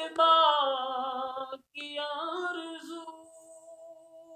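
A solo voice singing an Urdu naat unaccompanied. It draws out long, wavering held notes in two phrases with a brief break between them. The second phrase grows steadily softer and trails off near the end.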